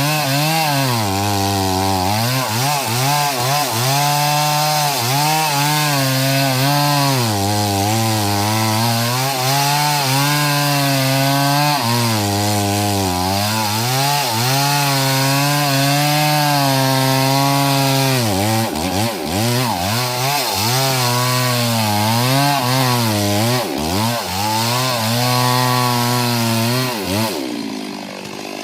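STIHL MS 382 two-stroke chainsaw running at high revs while cutting into wood, its engine pitch repeatedly sagging under load in the cut and picking back up. Near the end the revs drop away as the throttle is released.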